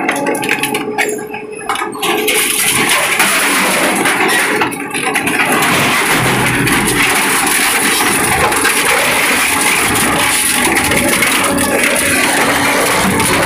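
Twin-shaft scrap metal shredder tearing and crushing sheet steel, a bicycle and wire between its slow-turning toothed cutter shafts: a dense grinding, crunching noise. It is lighter for the first couple of seconds, then loud and steady once the new load is drawn in, with a brief lull about five seconds in.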